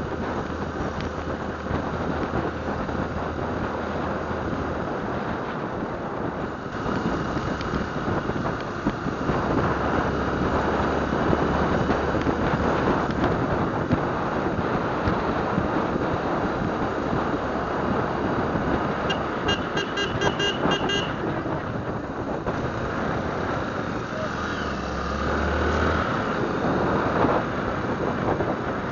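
Motorcycle running along the road with wind rushing over the microphone, a steady engine hum underneath. About two-thirds of the way through, a vehicle horn sounds a quick string of short beeps for about two seconds.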